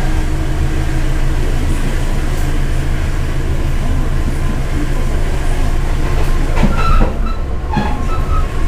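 Passenger train running, heard from on board: a steady low rumble of wheels and running gear on the rails. Near the end come a few brief high metallic squeals and clanks.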